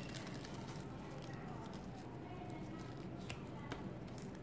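Quiet handling of folded glossy fabric pieces: soft rustling with a couple of faint light clicks a little past three seconds in, over a steady low background hum.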